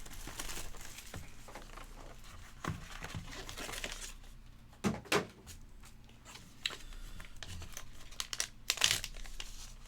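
Plastic and paper packaging crinkling and tearing as a trading-card box is unwrapped and opened, with scattered handling clicks and a few sharper knocks.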